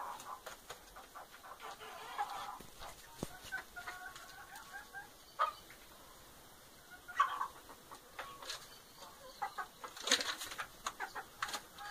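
Chickens clucking in short, scattered calls, with a few clicks and rustles. The loudest calls come about seven and ten seconds in.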